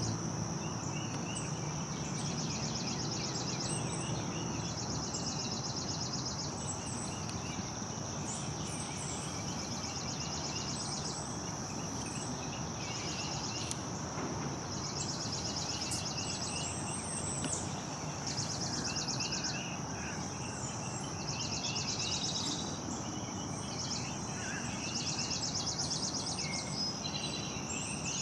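Insects trilling in a high, fast-pulsed drone that starts and stops in stretches of a few seconds, with scattered short bird chirps over a steady background hum of outdoor noise.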